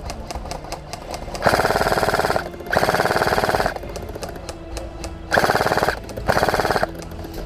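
Airsoft gun firing on full auto in four short bursts of rapid, even shots, with short pauses between them. The bursts are loud.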